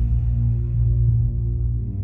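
Ambient electronic music: a loud, steady low drone with long held tones above it.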